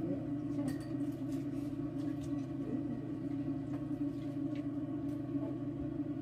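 A steady low hum, with a few faint clicks and taps from people eating with their hands.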